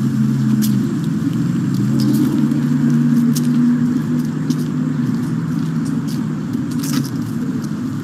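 A steady low motor hum, like an engine running nearby, with scattered light clicks and rustles.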